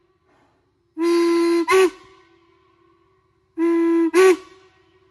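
Steam whistle of a geared steam locomotive sounding twice, each time a long steady blast of a bit under a second followed by a quick short toot, the pitch jumping briefly as the valve opens and closes.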